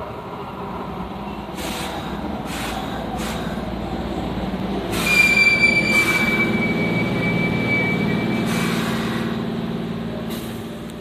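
Keihan Main Line train passing, the rumble of its wheels on the rails building and then easing off near the end. From about five seconds in, a high steady wheel squeal sounds for about four seconds, drifting slightly lower in pitch.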